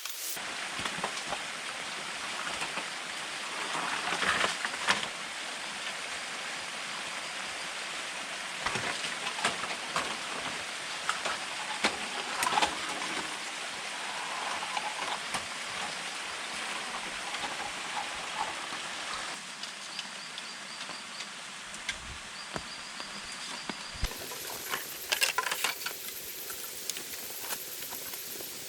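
Steady rain falling, with scattered sharper drips, taps and rustles over it.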